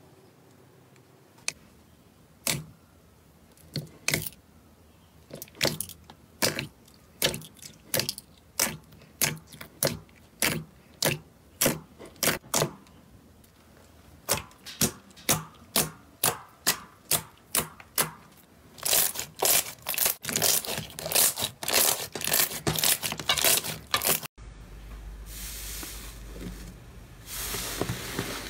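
Thick slime being pressed and poked by fingers, giving a string of sharp pops and clicks about two a second that thicken into fast crackling near the end. It then cuts to a softer, continuous squishing of a puffy slime being squeezed by hand.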